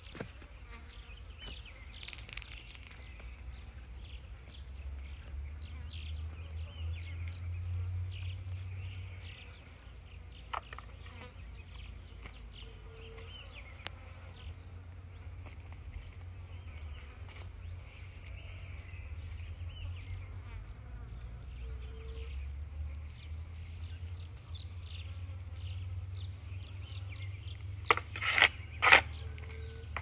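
Outdoor riverbank ambience: insects buzzing and chirping faintly over a low steady rumble, with a few sharp clicks or rustles near the end.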